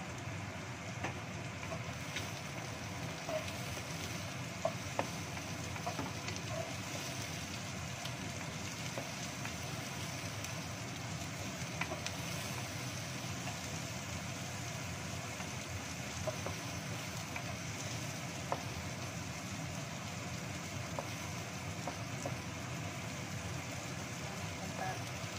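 Sliced shallots, garlic and carrot sticks sizzling steadily in oil in a wok, stirred with a wooden spatula that scrapes and taps against the pan now and then.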